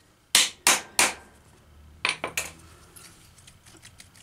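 Three sharp hammer blows on the end of an electric radiator cooling-fan motor's shaft, driving the armature out of its bearing. About two seconds in come two lighter knocks, then faint rattling as the motor comes apart.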